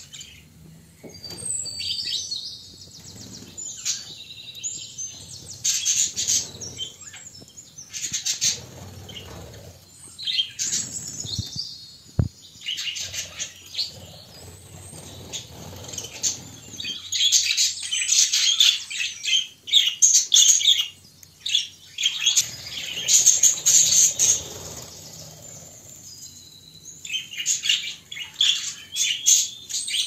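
Budgerigars chirping and warbling in rapid, high bouts with short pauses between them, busiest in the second half.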